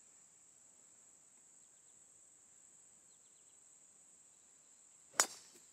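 Steady high-pitched chirring of crickets, and about five seconds in a single sharp crack of a golf club striking the ball.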